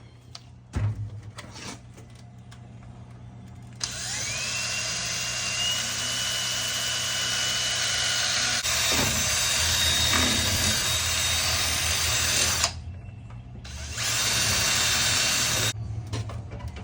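Power drill drilling a small hole to anchor a zip tie. The motor spins up with a rising whine and runs for about nine seconds, stops, then runs again briefly near the end; a couple of knocks come just before.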